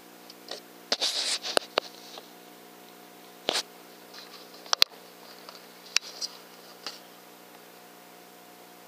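Handling noise picked up by a rifle-mounted thermal scope's built-in recorder: a short rustle about a second in and a few scattered sharp clicks, over a low steady electronic hum.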